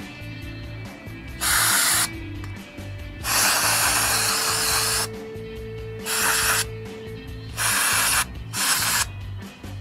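Aerosol spray can hissing in five separate bursts. The second burst is the longest, about a second and a half.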